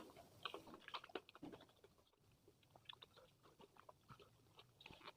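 Faint chewing: a person eating with soft, irregular mouth clicks.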